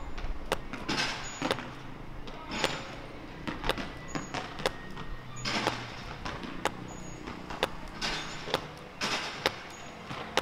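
A 110-gram Basque hand-pelota ball bouncing repeatedly on a hard floor. The sharp impacts come roughly one or two a second and sound dry and solid.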